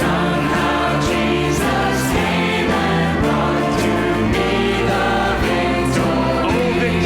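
Church worship music: a choir or congregation singing a hymn with instrumental accompaniment, over a steady bass line.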